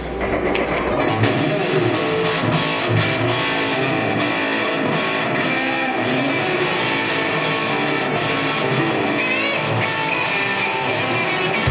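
Live rock band playing: distorted electric guitars over bass and drums.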